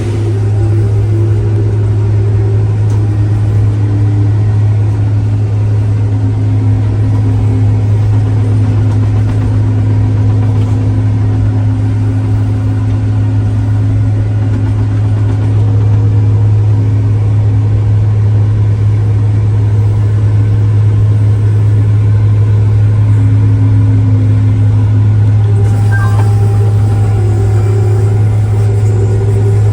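Tractor engine running steadily under load, a loud, even low hum with faint wavering tones above it.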